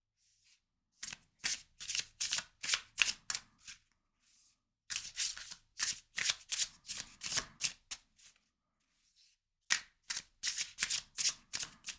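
A deck of tarot cards being shuffled by hand: three runs of quick card slaps, several a second, with short pauses between them.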